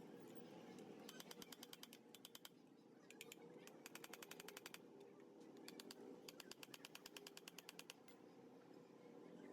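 Faint, rapid mechanical clicking in several short bursts, about fifteen clicks a second, stopping and starting like a ratchet being worked or a part being turned by hand.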